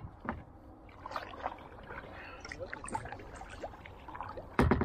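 Light clicks and knocks of gear being handled in a plastic kayak, with a loud low thump against the hull near the end.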